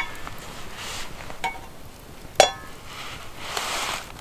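Camp cookware clinking: three sharp clinks that each ring briefly, the loudest about two and a half seconds in.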